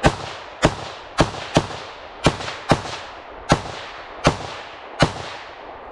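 AR-15-style semi-automatic rifle firing nine shots at an uneven pace, about half a second to most of a second apart, each crack trailing a short echo. The string stops about five seconds in.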